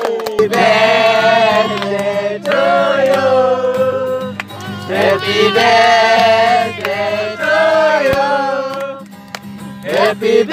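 Several male voices singing a song together to an acoustic guitar, with a few hand claps.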